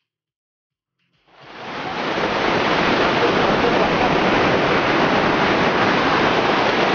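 Steady wash of surf on the beach, fading in from silence about a second in.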